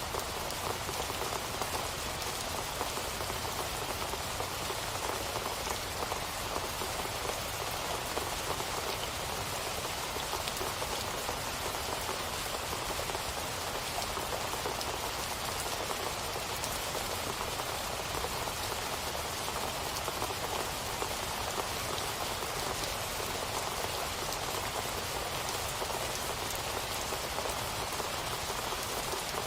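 Steady rain falling, a dense even hiss of many drops with no change in strength.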